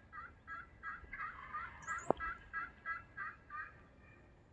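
A steady series of turkey yelps, about three a second, stopping near the end. A single sharp click about two seconds in.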